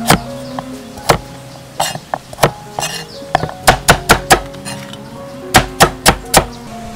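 A cleaver chopping on a thick wooden chopping board: about a dozen sharp chops, some in quick runs of four, over background music.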